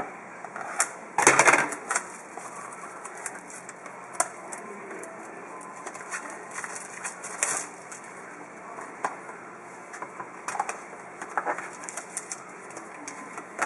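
Plastic shrink-wrap on a sealed trading-card box being cut and torn off by hand: irregular crinkling and rustling of the wrapper, with one loud burst of crackling about a second in.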